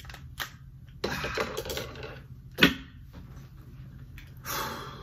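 Umarex Elite Force Glock 18c CO2 blowback BB pistol firing: one sharp crack about two and a half seconds in is the loudest sound. Fainter clicks and a short hissing rustle come before it, and another comes near the end.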